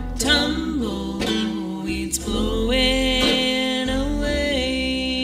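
Live Western swing band: a woman singing held, gliding notes over strummed acoustic guitars and plucked upright bass.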